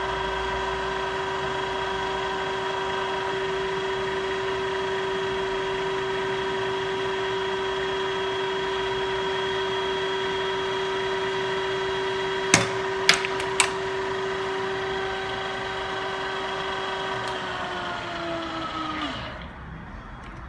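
Sharp LMV-50 vertical milling machine running under power with a steady whine, three sharp clicks in the latter half. The whine then drops in pitch and dies away as the machine winds down and stops near the end.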